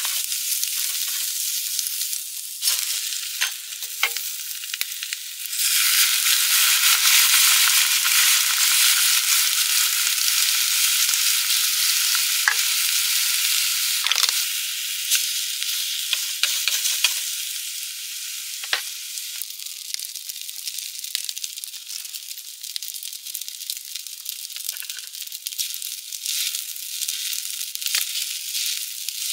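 Food sizzling in a hot pan, the hiss swelling about five seconds in and easing off after about seventeen seconds, with occasional sharp clicks and pops.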